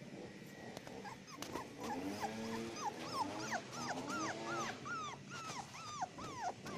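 Cockapoo puppies yipping and whimpering at play: a run of short, high cries that fall in pitch, a couple each second, starting about a second in, with some lower whines among them.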